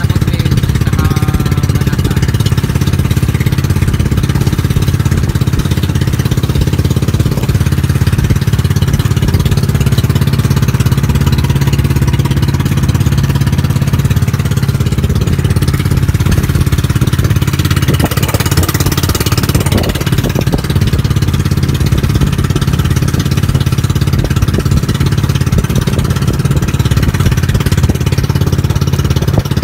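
The engine of a small outrigger fishing boat running steadily under way, a loud, even engine note, with a short rush of noise about 18 seconds in.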